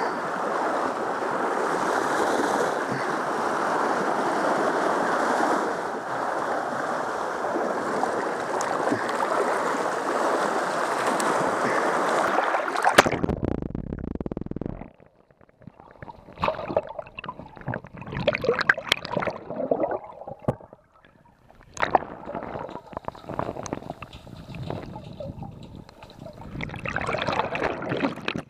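Sea water washing against the shore rocks, with wind on the microphone, as a steady rushing noise. About 13 seconds in, the sound cuts to the muffled underwater sound of the submerged microphone: gurgling, bubbles and scattered clicks, with churning water near the end.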